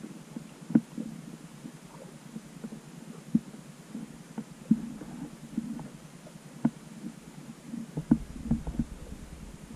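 Muffled underwater sound through a GoPro's waterproof housing: a low rumble of moving water with about half a dozen sharp knocks at irregular intervals.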